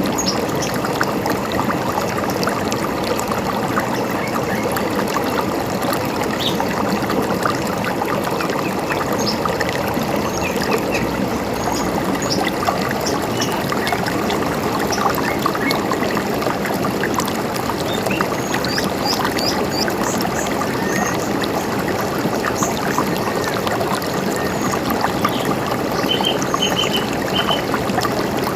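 A river running steadily over rocks, a constant splashing rush, with short bird chirps scattered over it.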